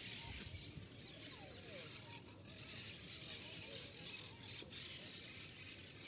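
Faint outdoor ambience with scattered short distant bird calls, and light rubbing and clicks from the phone being handled.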